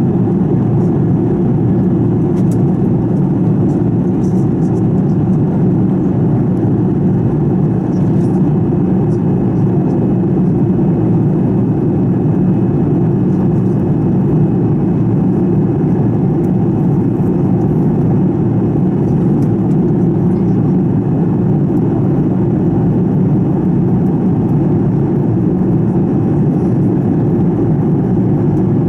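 Steady in-flight cabin drone of a Fokker 70, heard from a window seat right beside its fuselage-mounted Rolls-Royce Tay turbofan: a dense, even low rush of engine and airflow noise with a faint steady whine above it.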